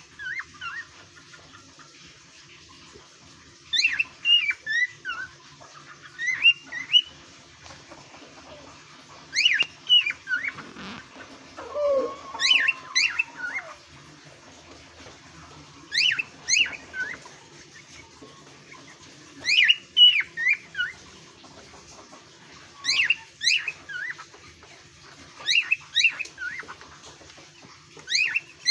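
Male cockatiel singing: short phrases of quick, high whistled notes with falling glides, repeated about every three to four seconds. A lower, fainter sliding call comes near the middle.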